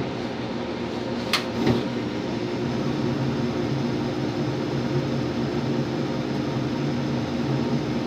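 Draft inducer fan motor of an old Janitrol gas furnace running with a steady hum during a restart of the ignition sequence. Two sharp clicks come about a second and a half in.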